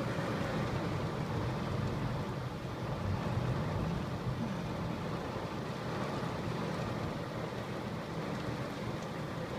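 Heavy thunderstorm downpour: a steady rush of pouring rain with wind, without any distinct thunderclap.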